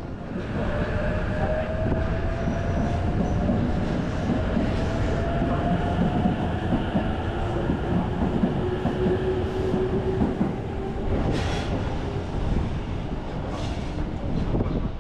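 Electric train running on rails, with wheel rumble and a faint motor whine that rises slowly in pitch, and two brief hisses in the second half.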